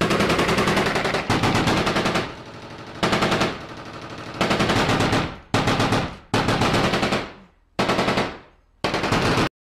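Automatic weapon fire in a string of long, rapid bursts, about eight of them, each trailing off before the next. The last burst cuts off suddenly near the end.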